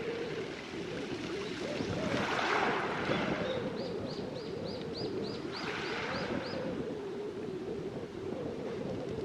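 Waves washing over a beach of round pebbles, swelling twice in a steady rush. In the middle a small bird sings a fast run of about ten high repeated notes.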